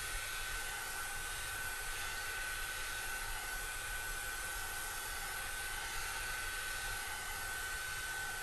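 Handheld hot air brush blowing continuously: a steady rush of air with a thin, constant motor whine above it.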